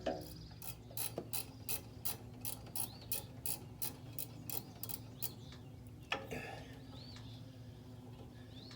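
Hand socket ratchet clicking steadily, about three clicks a second for some four seconds, as a bolt on the chipper's cutter plate is worked, then a single knock about six seconds in.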